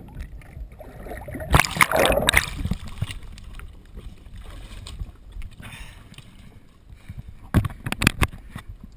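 Water splashing and sloshing as the camera comes up out of the lake, loudest about two seconds in, then low water lapping. Near the end, a few sharp knocks against the jet ski.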